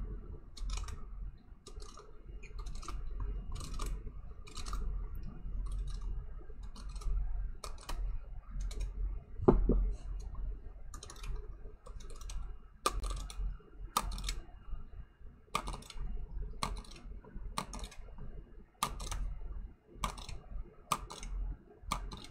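A stack of Panini Prizm basketball trading cards being slid one behind another in the hands. Each card edge gives a sharp click, at irregular intervals of about one a second.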